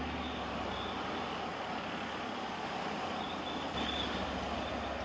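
Leopard armoured bridge-layer running as it drives slowly closer, a steady low engine rumble that grows louder about four seconds in.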